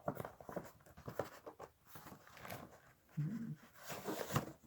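Scratching, rustling and light clicks of a cardboard shipping package being worked open by hand, with a brief low hum about three seconds in.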